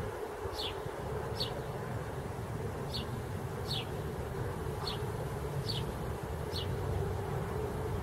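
A steady buzzing hum, as of an insect, over a low rumble. Seven short, high chirps, each falling in pitch, come at about one a second.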